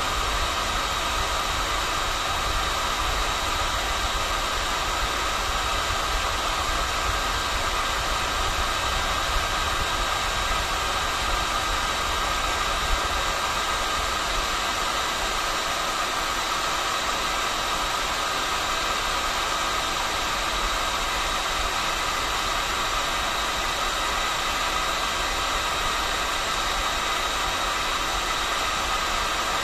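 Hot-air gun running steadily while heating plastic: an even blowing hiss with a constant fan whine.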